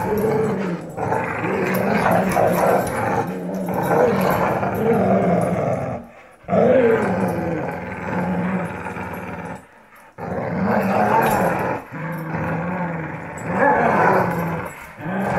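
Dogs growling in a tug-of-war over a rope toy: play growling. It runs as long, continuous rumbles that rise and fall a little in pitch, with short breaks about six and ten seconds in.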